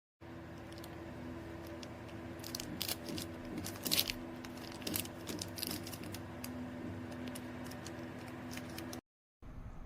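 Scattered light clicks and rattles of small plastic keyboard switches being handled, over a steady low hum. The sound cuts out completely for a moment near the end.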